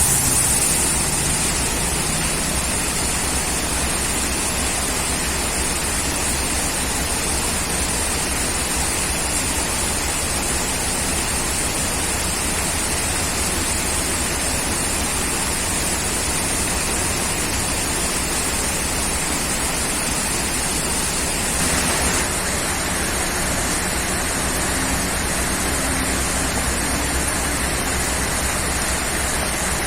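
Steady heavy rain falling, a continuous even rushing, with a slight shift in the noise about two-thirds of the way through.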